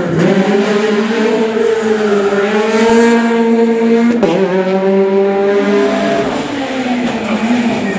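Peugeot 208 rally car engine running hard at high revs. Its pitch climbs for about three seconds, drops sharply about four seconds in, then holds and sinks slowly near the end.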